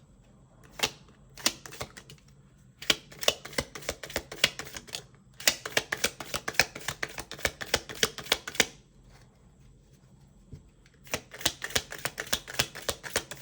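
A deck of tarot cards being shuffled by hand in several runs of rapid crisp clicks and flicks, with short pauses between the runs.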